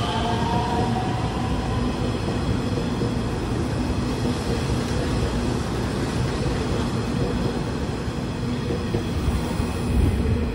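Nishitetsu electric commuter train running past along a station platform: a steady rumble of wheels and running gear as the cars go by, with the motors' rising whine fading out in the first second.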